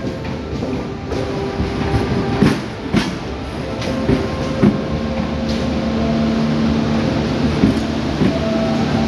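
Passenger train coaches rolling past along the platform: a steady rumble with irregular clicks and knocks as the wheels cross the rail joints. A steady low hum comes in about halfway through.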